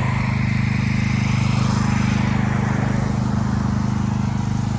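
Pressure washer's small engine running steadily, with a hiss that swells and then fades over the first three seconds.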